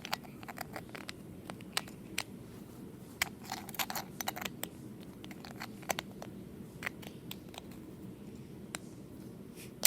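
Small flashlight parts being handled and screwed together: irregular light clicks and scrapes of the casing, batteries and spring being pushed in and the head threaded on, which is stiff to screw.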